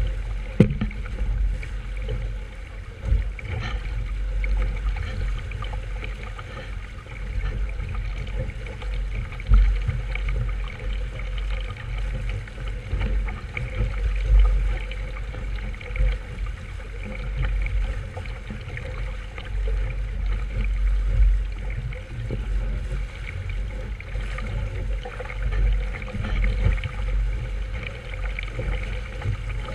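Wind and water noise aboard a sailboat under way: an uneven low rumble of wind on the microphone that swells and drops, over a steady rushing hiss of water along the hull.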